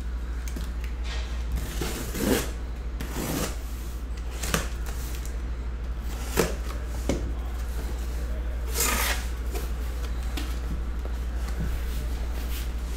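Cardboard shipping case of trading-card boxes being cut and torn open: a series of short scraping, tearing and rustling sounds of cardboard and packing tape, the longest about two thirds of the way through, over a steady low hum.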